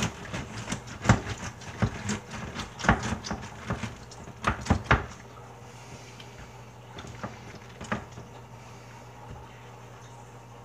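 Pampered Chef pineapple wedger being rocked back and forth and pushed down through a whole pineapple onto a plastic cutting board: a quick run of knocks, clicks and crunches for about five seconds, then only a couple of faint clicks.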